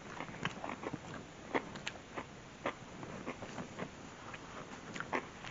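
A man chewing a mouthful of stuffed deep dish pizza: irregular, sharp, wet mouth clicks.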